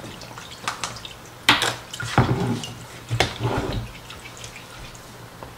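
A spoon stirring a thin liquid mixture of vinegar, rubbing alcohol and cornstarch in a glass bowl: splashing and sloshing, with a few sharp clinks of the spoon against the glass. The stirring is to work out the cornstarch clumps.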